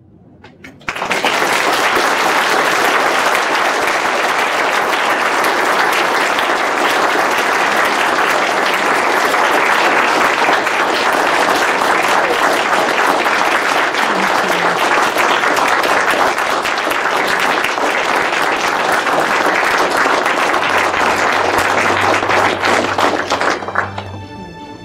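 Audience applauding: a roomful of people clapping steadily, starting about a second in and dying away near the end.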